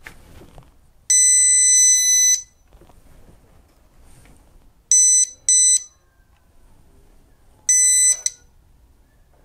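Rolson 3-in-1 detector in AC voltage mode beeping as it picks up the live mains cable feeding a wall socket. It gives one long, high beep about a second in, two short beeps in quick succession about halfway, and another beep near the end.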